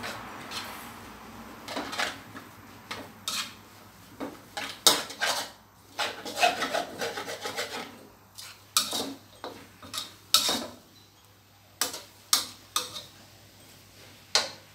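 Spatula scraping and clanking against a wok while stir-frying rice vermicelli with greens, in irregular strokes and knocks.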